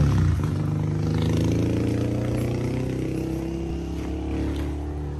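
A motor vehicle's engine running, loudest at first and then slowly fading as it moves away.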